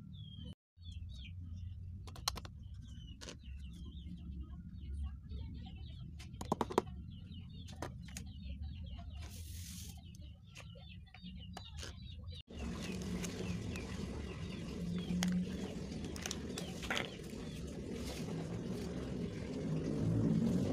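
Small birds chirping in the background over a low hum, with a few sharp clicks. After a cut about twelve seconds in, a louder steady rustling noise takes over.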